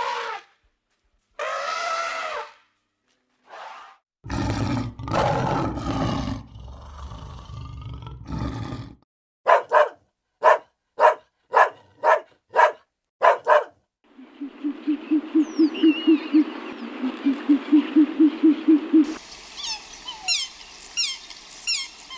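Several different animal calls one after another: a pitched call, then a long loud call about four seconds in, then a run of eight short calls evenly spaced about half a second apart, then a rapid steady pulsing, and high chirps near the end.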